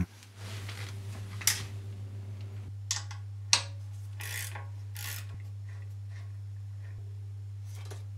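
Ratcheting wrench clicking as it works a fitting on the central lubrication oil hose, with a few sharper metallic clacks between strokes. A steady low hum runs underneath.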